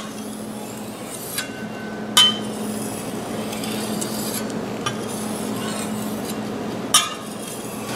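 Thin Chinese vegetable cleaver being stroked lightly across a wet 4,000-grit black translucent Arkansas stone: a steady scraping hiss, honing the final edge. A few clicks come through, some with a brief ring.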